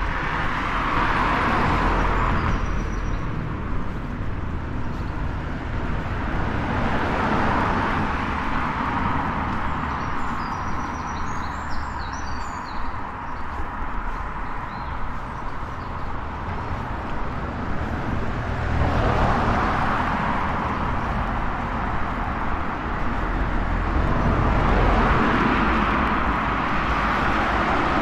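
Cars passing one at a time on the road alongside, each one's tyre noise swelling and fading, about four in all, over a steady low traffic rumble.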